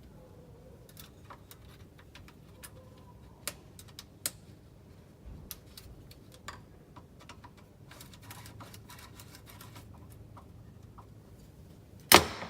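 Scattered light clicks and taps of hard parts being handled, with one loud sharp click or knock near the end.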